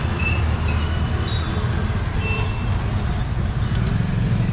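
Steady roadside traffic rumble from passing motor vehicles, with a few brief faint high tones in the first couple of seconds.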